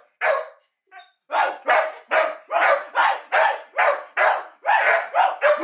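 A pet dog barking: a bark near the start, a pause of about a second, then a fast, steady run of barks at about three a second.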